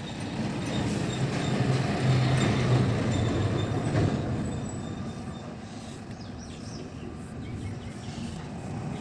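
A passing heavy vehicle rumbling, swelling to its loudest about two to four seconds in and then fading away.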